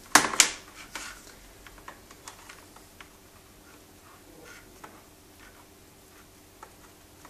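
Handling noise on the bench: two sharp clacks about half a second in, then scattered light clicks and ticks, over a faint steady hum.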